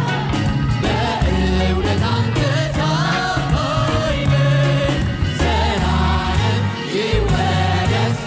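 Choir singing an Amharic gospel worship song with a band, over a steady bass line and a beat.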